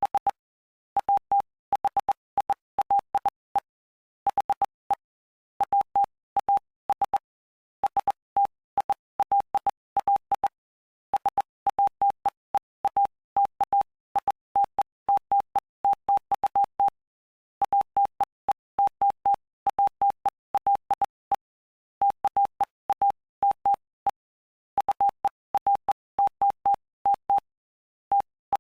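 Morse code sent as a single steady tone keyed on and off in dots and dashes. The letters come in quick runs, with short pauses between words.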